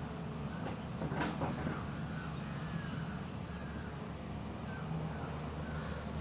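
Outdoor ambience: a steady low rumble with short bird chirps over it, and a brief louder noise about a second in.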